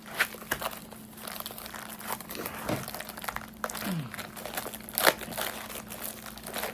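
Packaging crinkling and rustling in irregular crackles as a small parcel is handled and opened, with one sharper crackle about five seconds in.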